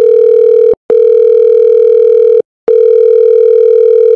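Loud, steady electronic beep tone at a single mid pitch, broken twice by short gaps into long tones of about a second and a half each, like a telephone tone.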